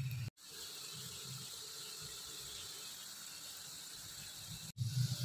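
Faint, steady sizzle of batter-coated potato fries deep-frying in hot oil in a kadai. The sound breaks off briefly twice, about a third of a second in and near the end.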